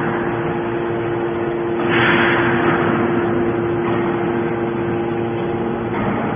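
Hydraulic scrap metal baler working as its ram pushes a compressed bale out, the power unit giving a steady hum. A surge of hiss comes about two seconds in.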